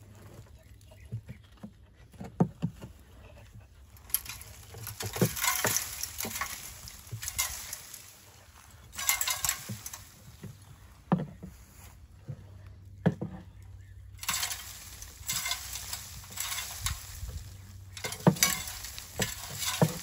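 Scraping and rustling as old nest debris is cleared out of a wooden barn owl nest box, with dusty material falling out and a few sharp knocks against the box. The scraping comes in irregular spells.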